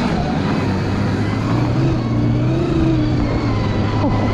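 Electric snowbike on a snow track kit running through powder: a steady low drivetrain and track hum under a thin, steady high electric-motor whine, with rushing noise over it.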